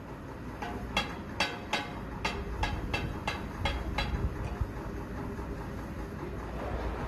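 Two metal spatulas clanging and scraping on a large flat tawa griddle as yogurt is mixed into brain masala: about a dozen sharp metallic clacks, roughly three a second, that stop about four seconds in. A steady low rumble runs underneath.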